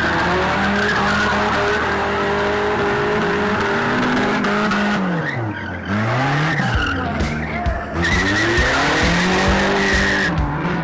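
Demolition drag race cars' engines running hard, the engine pitch dropping and then climbing again about halfway through as a car eases off and revs back up.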